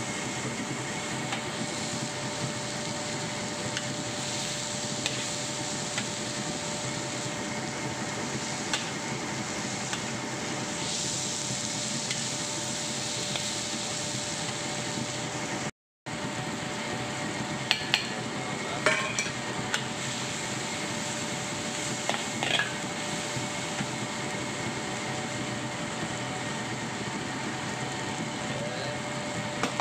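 Sliced shallots, garlic, tomato and chilli stir-frying in oil in a wok, with a steady sizzling hiss. A metal spatula scrapes and clinks against the wok a few times in the second half.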